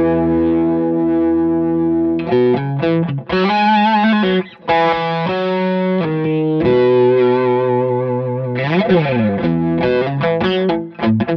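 Electric guitar played through the Crazy Tube Circuits Sidekick multi-effects pedal: a held chord, then single-note phrases. About nine seconds in there is a brief sweep rising and falling, and near the end the notes repeat and fade away.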